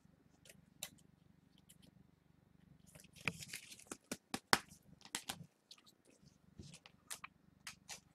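Trading cards being handled and sorted: faint rustles and light clicks, with a louder stretch of rustling and sharp clicks from about three to five and a half seconds in.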